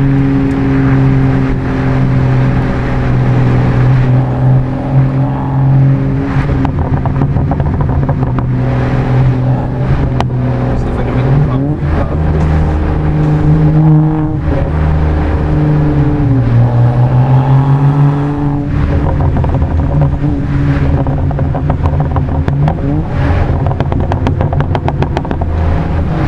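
BMW F30 335i's turbocharged inline-six (N55), running a Bootmod3 stage 2 tune, droning steadily at cruise as heard inside the cabin, with road noise beneath. Its pitch rises briefly about twelve seconds in and falls back a few seconds later as the throttle changes.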